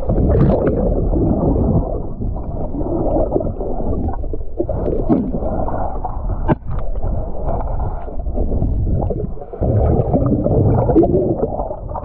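Scuba diver's exhaled bubbles gurgling underwater, swelling in surges every few seconds, with a few sharp knocks.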